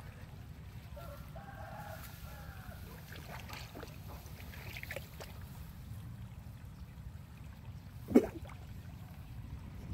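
Distant rooster crowing once, faint, over a steady low rumble, with a single loud knock about eight seconds in.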